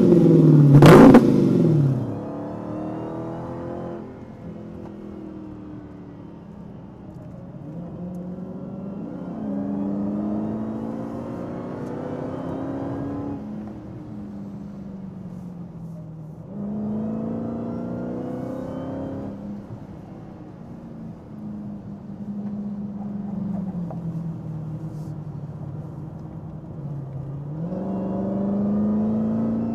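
Dodge Charger SRT Hellcat's supercharged V8 engine revving loudly in the first second or two, then running and pulling through several long rising accelerations that each drop back in pitch.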